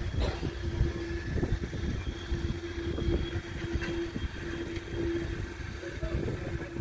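CSX freight train cars rolling past, wheels clattering with irregular knocks over a low rumble and a steady whine that comes and goes, gradually getting quieter.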